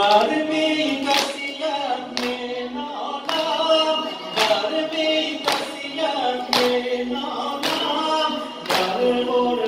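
Men singing a Shia Muharram mourning lament (noha) together, with rhythmic chest-beating (sineh-zani) strikes landing about once a second.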